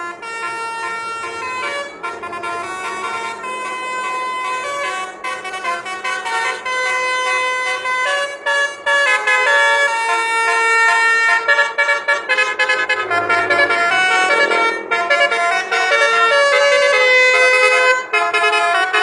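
Bus telolet horn, a set of musical horns, playing a tune: held notes that step from pitch to pitch, several tones sounding together, getting louder about halfway through.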